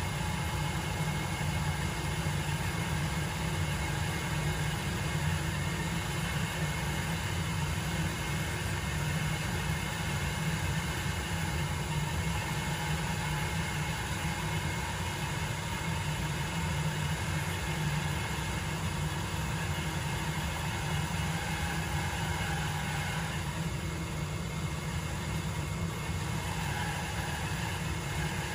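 14-inch Rikon 10-326 bandsaw running steadily with a low motor hum, resawing a walnut board down the middle.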